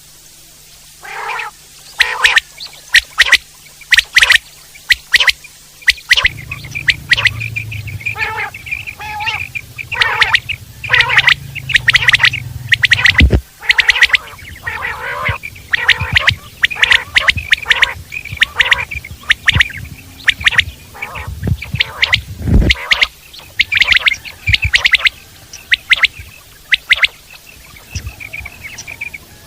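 Common quail (Coturnix coturnix) calling: a fast, loud run of short, sharp calls repeated over and over. A low rumble sits underneath for several seconds in the middle, with a low thump partway through.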